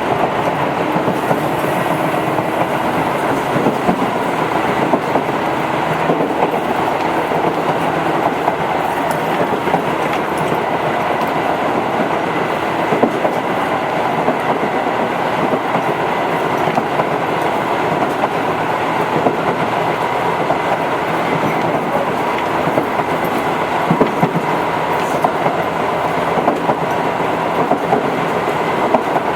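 Tobu 8000-series electric commuter train running between stations: a steady rumble of wheels on track with a faint steady whine, broken by occasional clicks over rail joints.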